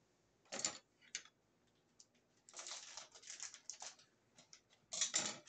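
Plastic bag of decorative filler crinkling and rustling in short bursts as it is handled and opened.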